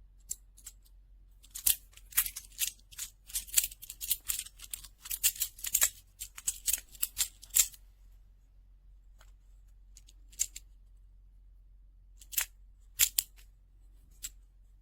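Small plastic magnetic cube blocks clicking and clattering as they are handled and snapped together: a fast run of sharp clicks for several seconds, then a few single clicks and short pairs near the end.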